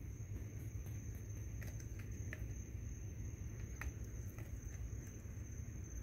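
Insects trilling with one steady high-pitched tone, over a low steady rumble, with a few faint short clicks about two and four seconds in.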